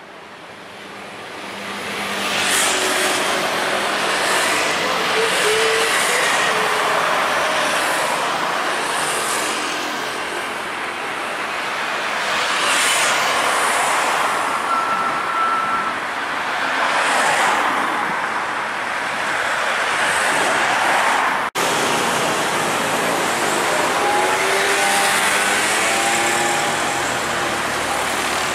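Busy city road traffic: cars and other motor vehicles passing one after another, the noise swelling and fading every few seconds. It breaks off for an instant about three-quarters of the way through.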